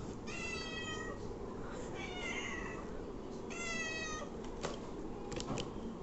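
A domestic cat meowing three times, each meow short and falling slightly in pitch, followed by a few light clicks near the end.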